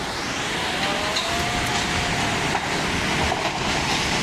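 Floodwater rushing through a city street, a loud, steady roar of water.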